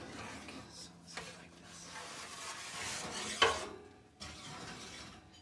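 Metal loaf pans being slid and scraped across a wire oven rack, with a sharp metal clank about three and a half seconds in.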